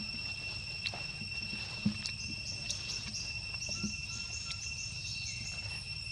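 Steady high-pitched insect drone, with a run of quick high chirps in the middle and a few sharp clicks.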